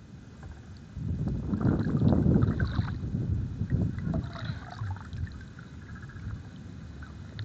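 Water sloshing and splashing, with a sudden onset about a second in. It is loudest for two or three seconds, then eases off to a low, steady background.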